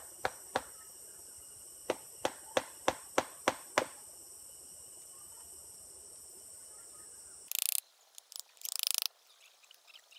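Wooden mallet knocking on a tool set into a tree trunk, cutting in toward a wild honeybee nest. There are two knocks, then a run of seven quick, even knocks about three a second, over a steady high insect chorus. Near the end the sound cuts to two loud rushing bursts.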